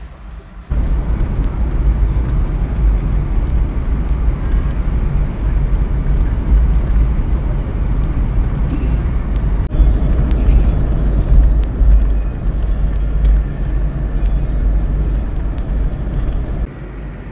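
Road noise inside a moving car's cabin: a loud, steady low rumble of tyres and engine. It starts suddenly under a second in and drops off abruptly near the end.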